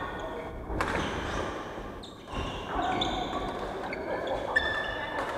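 Badminton rally on a wooden court: a few sharp racket strikes on the shuttlecock, about a second and a half apart, with short high squeaks of shoes on the floor, echoing in a large hall.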